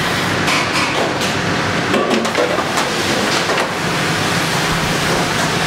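Commercial kitchen noise: a steady fan hum with the clatter and scrape of metal sheet pans against oven racks.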